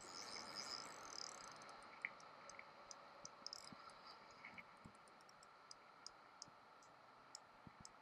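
Near silence: faint outdoor ambience with scattered, irregular light ticks.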